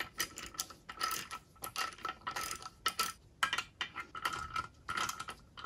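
Socket ratchet clicking in short repeated runs as the handle is swung back and forth, tightening the 5/8 nuts that hold a MerCruiser outdrive's upper unit to its lower unit.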